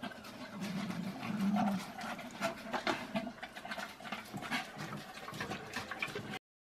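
A dog licking out a large stainless steel stock pot: a quick, irregular run of wet lapping and tongue clicks against the metal.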